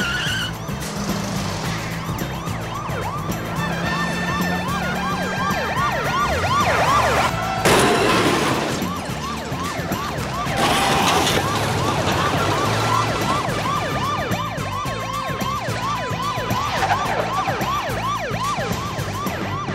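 Police car siren on a fast yelp, its pitch sweeping up and down a few times a second, over background music. Two louder rushing noises come through about eight and eleven seconds in.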